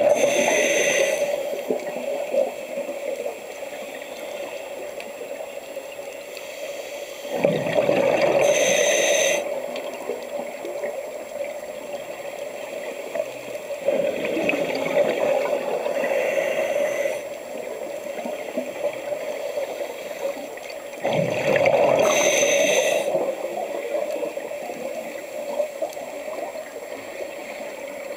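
Scuba diver breathing through a regulator underwater: four slow breath cycles about seven seconds apart, each a loud stretch of bubbling exhaust and hissing regulator airflow, with steady faint bubbling in between.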